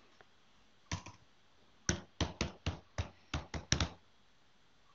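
Typing on a computer keyboard: a single keystroke about a second in, then a quick run of about eight keystrokes as a word is typed.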